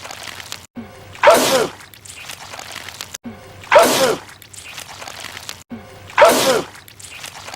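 A man sneezing loudly, spraying goo: three identical sneezes about two and a half seconds apart, the same sneeze looped.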